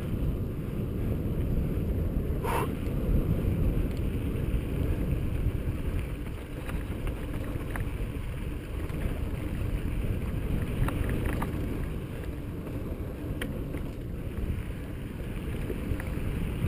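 Wind buffeting the camera microphone while riding a mountain bike, a steady low rumble, with a few light clicks from the bike on the rock.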